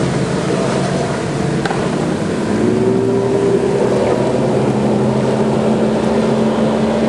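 Jet ski engines running hard in a race, over a steady rush of noise. About three seconds in, one engine climbs in pitch as it revs up.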